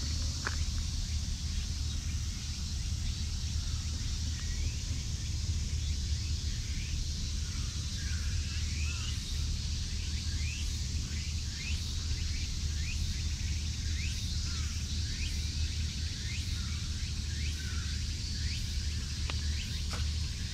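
Outdoor ambience: small birds chirping over and over from about a third of the way in, over a steady high insect hiss and a low steady rumble.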